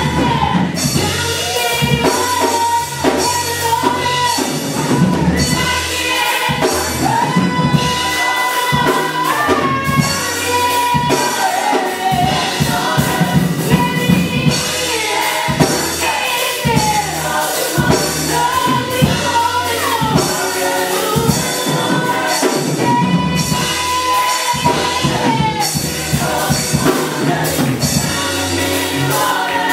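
Upbeat gospel worship music: singers over a drum kit and a bass line, with tambourine.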